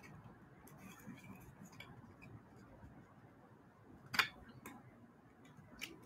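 Faint rustling and light clicks of a vintage baseball card being handled and slipped into a clear plastic card sleeve, with one sharper click about four seconds in and a couple of softer ones after.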